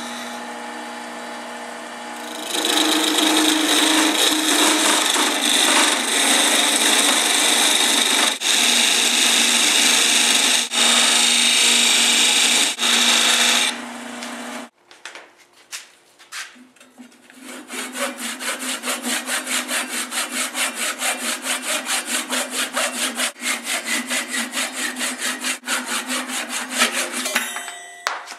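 Wood lathe running with a turning tool cutting into a small spinning wooden blank: a steady motor tone, then a loud, even cutting noise with a few brief breaks as the tool lifts, ending about halfway through. After a short gap, a fast rhythmic scraping of about four strokes a second runs over the motor tone for most of the second half.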